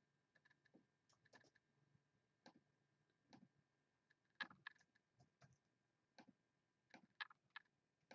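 Faint, scattered clicking of a computer mouse and keyboard as a list is copied and pasted into a spreadsheet, a couple of dozen irregular clicks.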